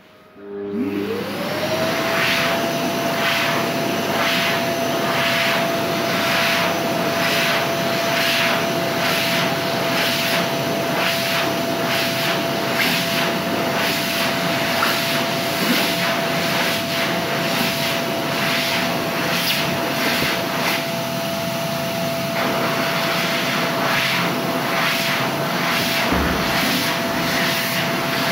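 PHS Airstream Vitesse hand dryer switching on as hands go under it. Its motor whine rises about half a second in and settles at a steady pitch over loud rushing air, which keeps running.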